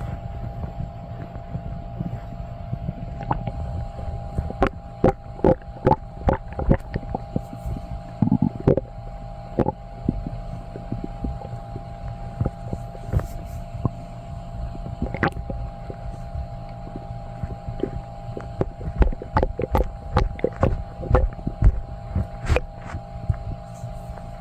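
Human stomach gurgling and sloshing after drinking milk and eating cheesy food: a steady low rumble with many short gurgles and pops that come in clusters, over a steady hum.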